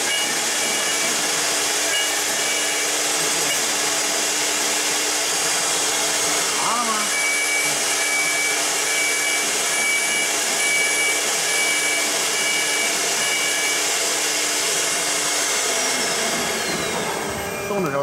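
High-speed router spindle of a CNC door lock-hole machine running with a steady high hiss and whine. Near the end its whine falls steadily in pitch as it winds down.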